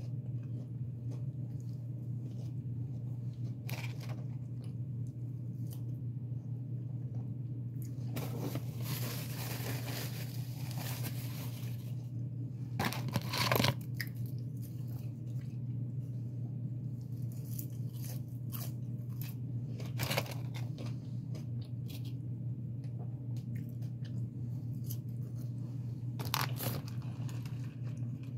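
Chewing and the rustle of paper food wrappers, with a longer rustling stretch about a third of the way in and a few sharp clicks, over a steady low hum.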